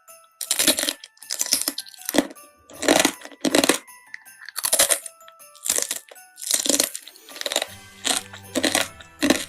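Close-miked crunchy eating: loud bites and chews of crisp food, roughly one crunch a second, over faint background music.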